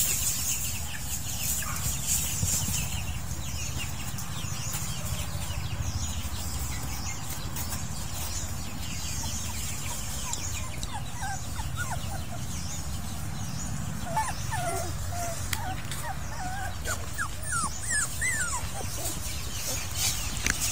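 Short high squeaks and whimpers from young animals, clustered from about eleven seconds in, over a steady low rumble.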